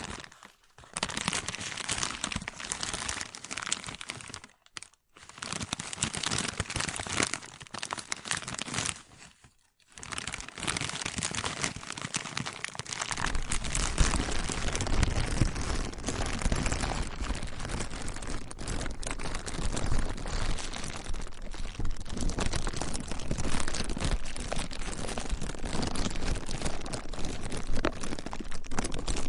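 Plastic being crinkled and crumpled: a dense, crackling rustle that stops briefly three times in the first third, then runs on unbroken, with a low rumble joining underneath partway through.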